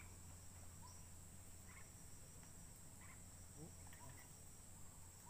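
Near silence with a faint, steady high-pitched drone of insects and a few faint, short chirps scattered through it.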